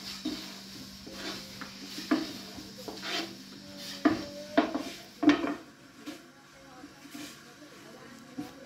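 Irregular clinks and knocks of metal kitchenware, about seven of them over the first five seconds, each ringing briefly, over a low steady hum.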